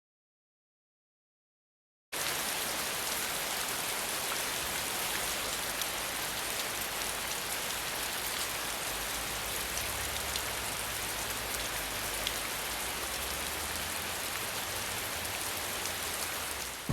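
About two seconds of total silence, then steady rain: an even hiss full of fine drop ticks over a faint low rumble.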